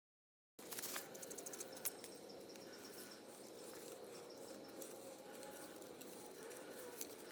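A half-second of dead silence, then faint outdoor ambience: a low steady hum with a few light clicks and ticks in the first couple of seconds.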